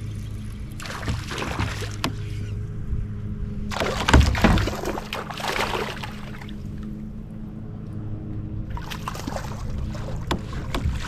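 Water sloshing and splashing at a kayak's side in three bouts, with a heavy knock on the hull about four seconds in, over a steady low hum.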